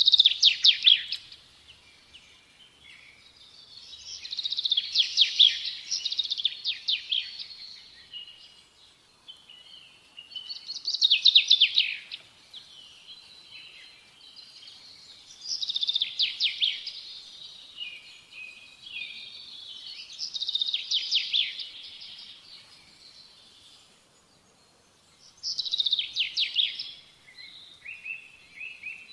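A songbird singing: a short phrase of quick notes sliding downward, repeated every four to five seconds, with softer twittering in between.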